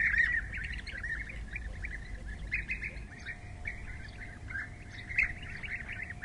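European bee-eaters calling: a chorus of short, repeated calls, several a second, going on throughout.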